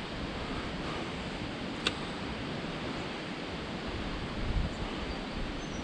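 Steady rush of a small creek running high with rain water, with one sharp click about two seconds in and a short low thump about four and a half seconds in.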